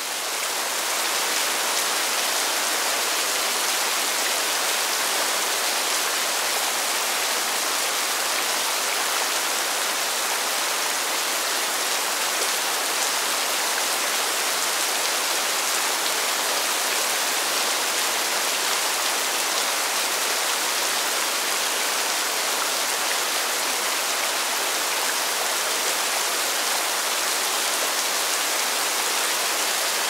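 Steady rain falling, an even dense hiss that fades in at the start.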